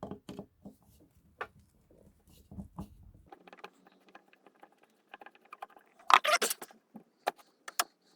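Light clicks and clinks of small metal parts and a hand tool being handled, with a short clattering rattle about six seconds in and two sharp clicks near the end.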